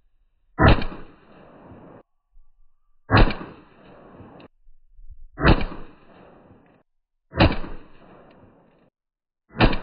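Five single shots from a Ruger .22 LR pistol fitted with a Tandemkross Game Changer muzzle compensator, about two seconds apart, each a sharp crack followed by a short fading echo.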